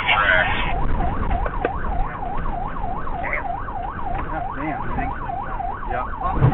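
Police car siren on fast yelp, its pitch rising and falling about three times a second.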